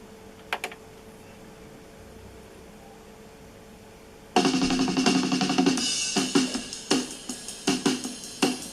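Aiwa CDS-A190 portable CD player: a low hum with two quick clicks, then about four seconds in a song starts abruptly through its speakers, led by a full drum kit.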